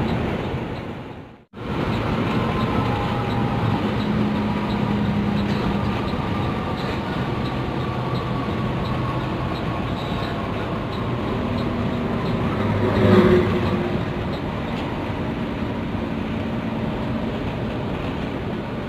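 Intercity coach on the move: steady engine and road noise with a slow-shifting whine, one louder moment about two-thirds of the way through. The sound cuts out briefly about a second and a half in.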